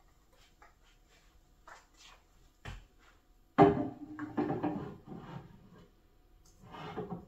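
Items being set down and shifted on a bookshelf: a few light knocks, a sharp knock, then a heavy thud about halfway through, followed by scraping and shuffling.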